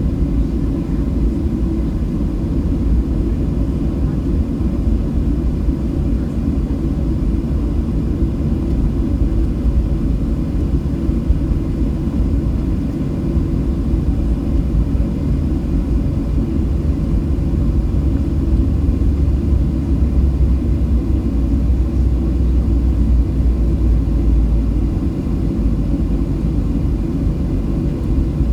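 Steady low rumble heard inside the cabin of a Boeing 737-700 on its departure, from its CFM56 jet engines and the airframe. The deepest part of the rumble grows stronger about two-thirds of the way through, then eases near the end.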